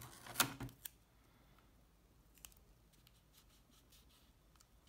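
Brief papery rustle and scrape in the first second as blue masking tape is handled and pressed around a nail on a cardboard toilet-paper roll, followed by a few faint small clicks.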